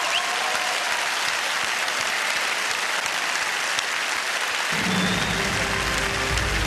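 Large audience applauding steadily; about two-thirds of the way through, music with low sustained bass notes comes in under the clapping.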